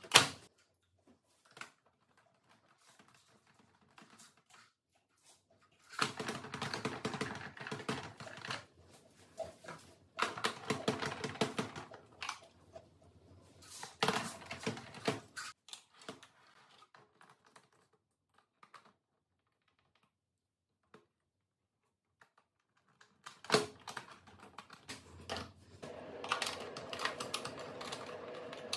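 Screwdriver working screws in the plastic chassis of a disassembled Roborock robot vacuum: three bursts of rapid clicking, each two to three seconds long, after a sharp click at the start. Near the end, a knock and then plastic parts clattering as an outer piece is lifted off.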